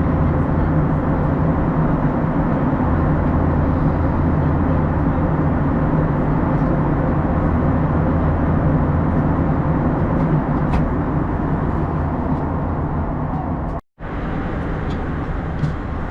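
Steady cabin noise of an Airbus A321 airliner in flight: a constant rush of airflow over a low engine hum. It drops out for an instant about fourteen seconds in, then continues slightly quieter.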